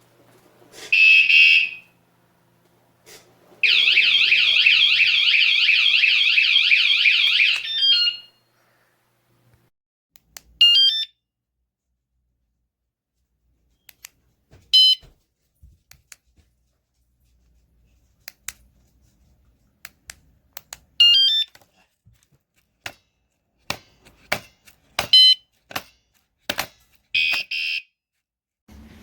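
Wsdcam 113 dB motorcycle vibration alarm sounding: a short high burst, then a loud, rapidly warbling siren for about four seconds. After that come several brief high chirps spread over the rest of the time, with scattered clicks between them.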